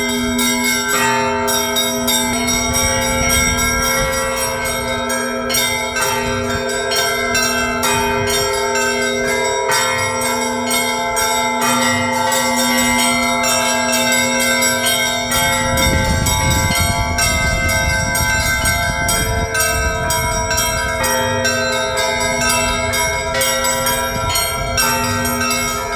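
Orthodox monastery church bells ringing in a peal: smaller bells struck in quick succession over the deep, held ring of a large bell.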